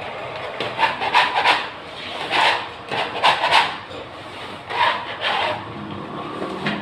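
Old wallpaper backing being torn and peeled off a wall by hand, in several short rasping rips.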